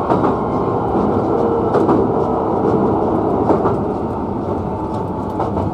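Hankyu 9300-series electric train running, heard from inside the front car: a steady rolling rumble with a faint whine and a few sharp wheel clicks over the track.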